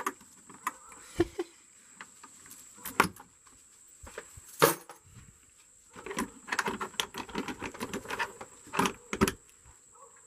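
Keys jangling and a padlock clinking against a metal door hasp as it is unlocked, with a single sharp click a little under halfway through and a run of rattling clicks in the second half.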